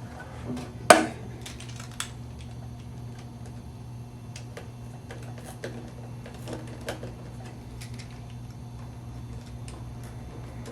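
Scattered small clicks and taps of screws being set into a Stenner pump's cover by hand, with one sharp click about a second in, over a steady low hum.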